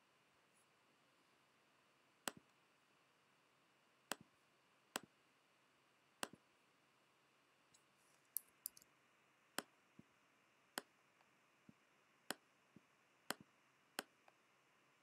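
Computer mouse clicks, sharp and single, about a dozen at irregular intervals with a quick cluster near the middle, over faint room hiss.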